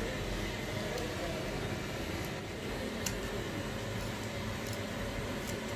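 Steady machine-like hum with a few faint sharp clicks of large metal shears snipping the rubber edge of a truck inner-tube patch.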